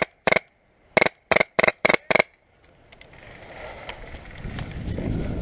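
Airsoft gun firing in quick semi-automatic shots, about three a second, seven shots in the first two seconds or so. After that a low rumbling, rustling noise builds toward the end.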